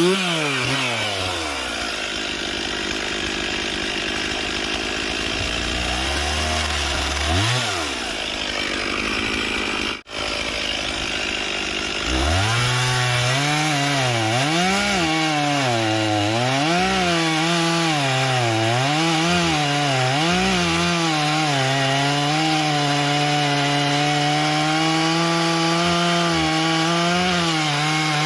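Gas chainsaw revving up and cutting through a downed log, its engine pitch rising and falling as the chain loads and frees in the cut. The sound drops out briefly about ten seconds in.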